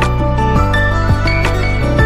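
Background music: a gentle instrumental track with held notes over a steady beat.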